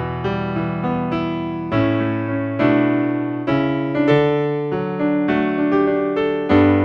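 Electronic keyboard playing a slow instrumental piece in a piano voice: chords over low bass notes, a new chord struck every second or so and left to ring.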